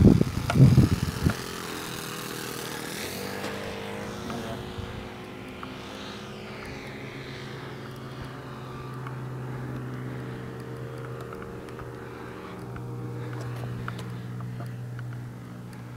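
Magnum .53 four-stroke engine of a radio-controlled airplane droning steadily in flight, its pitch shifting as the plane passes about three seconds in and then drifting slowly with distance and throttle. A few low thumps of wind on the microphone in the first second.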